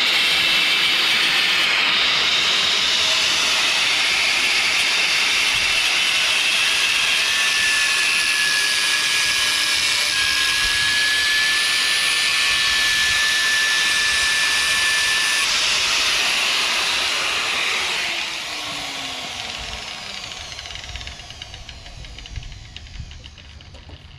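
Porter-Cable angle grinder running and grinding metal on the mower's blade adapter: a steady, harsh hiss. About 18 seconds in it is switched off and winds down with a falling whine.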